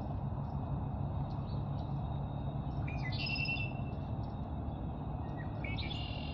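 Red-winged blackbird singing twice, each song a short rising note followed by a buzzy trill, about three seconds in and again near the end, with scattered short chip notes. A steady low rumble runs underneath.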